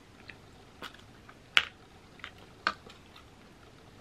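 Metal spoon scooping cherry pie from an aluminium foil pie tin: a handful of sharp, irregular clicks and scrapes of spoon on foil, the loudest about a second and a half in.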